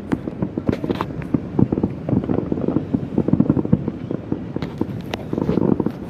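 Many consumer fireworks and firecrackers popping and cracking across the city, a dense, irregular barrage of overlapping bangs from near and far, with several sharper cracks about a second in and again near the end.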